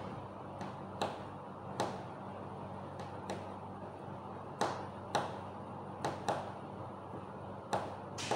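Samosas deep-frying in hot oil: a steady sizzle broken by sharp taps and pops at irregular intervals, about once a second.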